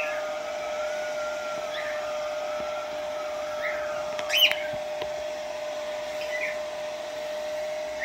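Philips hair dryer blowing steadily, a whooshing hum with a wavering whine. A cockatiel gives short high chirps every couple of seconds, the loudest about four and a half seconds in.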